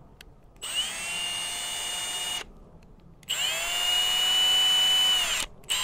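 Milwaukee M18 ONEDD2 brushless cordless drill driver running free, trigger pulled twice for about two seconds each: it spins up to a steady high whine and winds down, the second run louder. A brief blip of the motor follows near the end.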